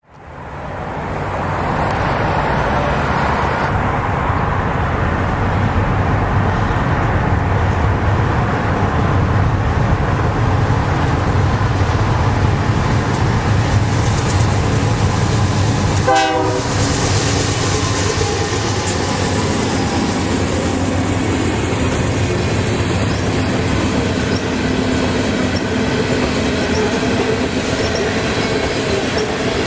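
A BNSF train rolling past close by: a steady, loud rumble of wheels on rail that builds over the first two seconds and then holds.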